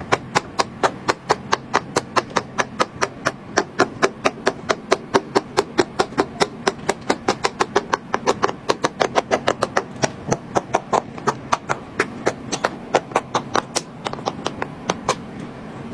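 Silicone pop-it fidget toy bubbles being pressed one after another by finger: a quick, even run of sharp pops, about five a second.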